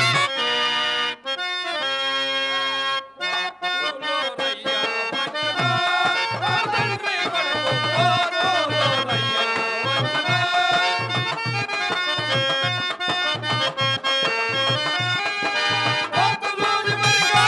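Instrumental music of a Telugu stage drama: a reedy melody of held and sliding notes over steady hand-drum beats, about two a second.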